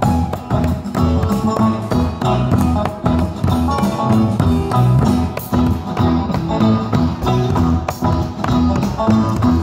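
Live rock band playing, with guitar, bass and a drum kit keeping a steady beat.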